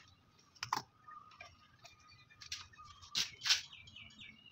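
A few light clicks and taps from a soldering iron, solder spool and wire being handled against a power-amplifier board during soldering, the loudest about a second in and two close together near the end.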